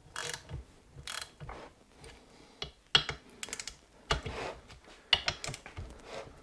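Torque wrench ratcheting bolts down on a Yamaha G29 engine's crankcase cover: short bursts of ratchet clicking, with a few sharper, louder clicks about three, four and five seconds in.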